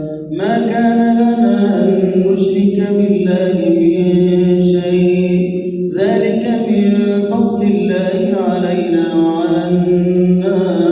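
A man reciting the Quran in a slow, melodic chant, holding long notes, with a short break for breath about six seconds in.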